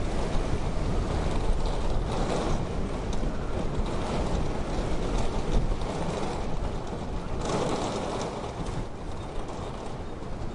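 Wintry wind blowing, with a grainy texture. It swells in gusts about two seconds in and again around seven and a half seconds, then eases off.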